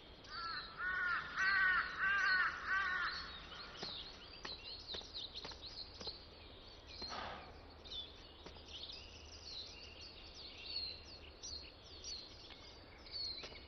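A crow cawing about five times in quick succession, then small birds chirping on and off.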